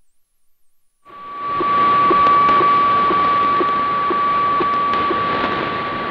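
HF weather-fax (radiofacsimile) signal on a Grundig 750 shortwave receiver in upper sideband, coming up about a second in as the volume is turned up. It is a steady tone over static hiss, with a short tick about twice a second that marks each scan line of the fax image being sent.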